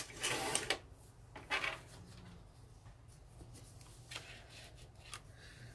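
Paper rustling as narrow strips of patterned scrapbook paper are handled, with a sharp click at the very start, two short bursts of rustling in the first two seconds, then a few fainter rustles.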